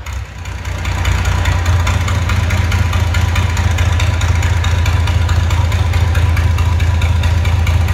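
Large old diesel engine running loud and steady. It picks up from a brief dip in the first second and then holds an even speed with a deep, rapid firing beat.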